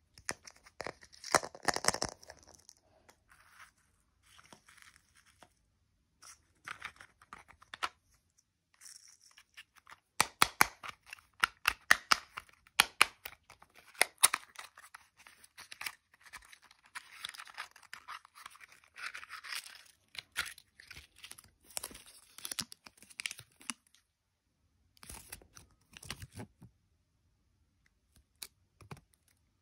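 Hands opening plastic surprise-egg capsules and their wrapper packaging: sharp plastic clicks mixed with tearing and crinkling, in irregular bursts with short pauses.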